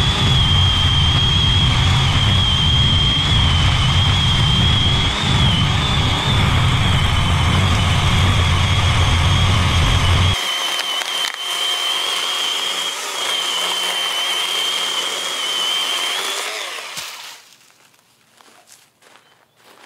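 Greenworks 24-volt 10-inch cordless chainsaw running flat out as it cuts through a roughly 6-inch tree branch, its electric motor and chain giving a steady high whine. The deep low rumble drops away about ten seconds in, and the saw stops about 17 seconds in.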